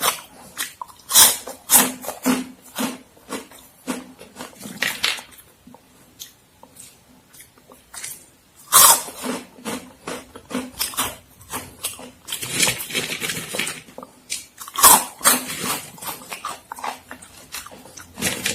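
Crunchy Momogi corn-stick snacks being bitten and chewed close to the microphone. There are sharp crackling bites about a second in, around nine seconds in and around fifteen seconds in, with crunchy munching between them.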